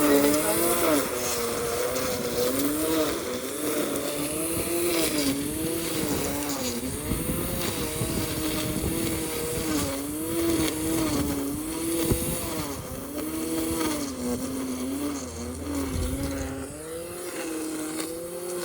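Lawn mower running steadily, its pitch rising and falling every second or two.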